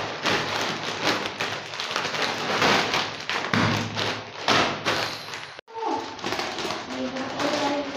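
Foil chip packets crinkling and crackling as they are wrenched open and handled one-handed, with taps and knocks against the table. The sound cuts out briefly about five and a half seconds in.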